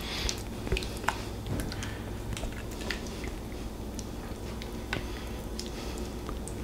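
Thick cream of chicken soup sauce being poured and spread over chicken pieces in a baking dish: soft wet squishing with scattered light clicks of a utensil against the dish.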